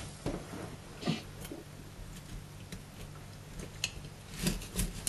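Scattered faint taps and scrapes of a kitchen knife against a freshly scaled mejina (largescale blackfish) on a plastic cutting board in a stainless steel sink, as the knife is set behind the fish's head to start cutting.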